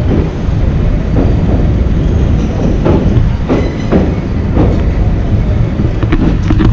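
Passenger train running across the Pamban railway bridge, heard from on board: a loud, steady low rumble with the wheels clacking over rail joints at irregular intervals.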